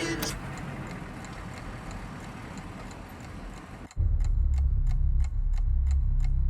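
Regular ticking, about three ticks a second. About four seconds in, a loud, low vehicle-engine rumble cuts in under the ticks and keeps running.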